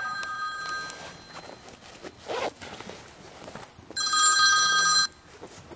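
A phone ringing: a steady electronic two-tone ring that fades out about a second in, then rings again loudly for about a second near the end.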